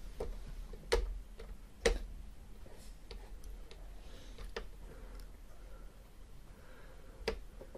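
Metal tweezers of an Operation board game clicking and scraping against the plastic board and game piece as the player fishes for the heart piece: about eight faint, irregular clicks, the two loudest about one and two seconds in. The buzzer does not go off.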